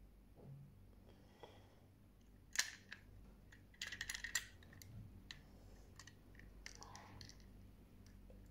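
Light plastic clicks and taps from toy packaging and toys being handled: one sharp click about two and a half seconds in, a quick run of clicks about a second later, then scattered fainter taps.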